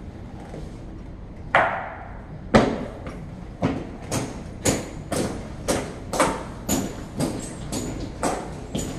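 Hard heel strikes of an honor guard's drill boots on a stone floor: a few heavy strikes about a second apart, then steady marching steps at about two a second.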